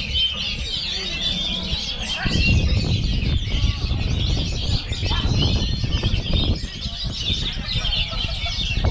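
Many caged oriental magpie-robins (kacer) singing at once, a dense, continuous overlapping chatter of whistles and trills, over a low rumble.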